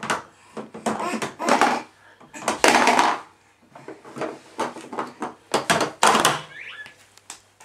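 Plastic activity toy being knocked and rattled by a toddler's hands: an irregular run of sharp knocks and clatters, loudest about a third of the way in and again near the end.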